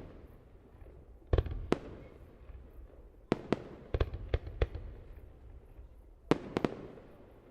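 Aerial fireworks bursting with sharp bangs, each trailing off in a low rumbling echo. There are two bangs about a second and a half in, a quick run of five between three and five seconds, and three more close together near the end.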